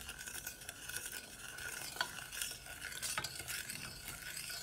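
Wooden spoon stirring sugar into water in a stainless steel pot: a soft gritty swishing of sugar grains not yet dissolved, with a couple of light knocks of the spoon against the pot.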